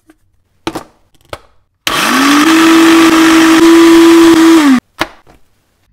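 Two short clicks, then a Black+Decker personal blender grinding ginger, garlic, lemongrass and chili into a paste. Its motor spins up quickly, runs loud and steady for about three seconds, then winds down and stops.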